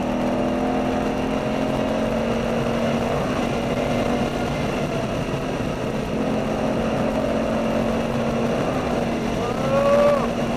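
A V8 sports car's engine running steadily at speed on track, heard from inside the cabin over road and wind noise. Near the end a brief higher tone slides up and down over it.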